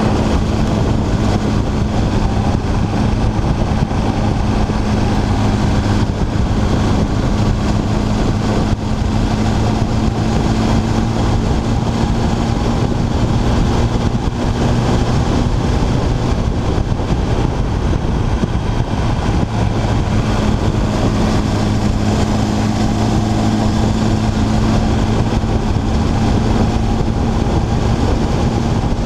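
Sport motorcycle under way at a steady cruising speed, its engine holding one even note, over heavy wind and road noise on the microphone.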